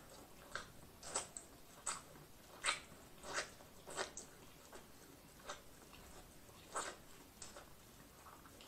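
Close-miked biting and chewing on corn on the cob: a string of short, wet crunches and mouth smacks at an irregular pace, roughly one or two a second.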